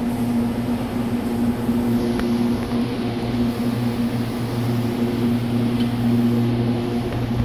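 Steady low hum of machine-shop machinery running, holding one unchanging pitch with a few faint ticks.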